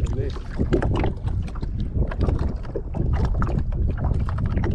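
Wind buffeting the microphone with a steady low rumble, over choppy water lapping and slapping against the side of a small boat in many short splashes.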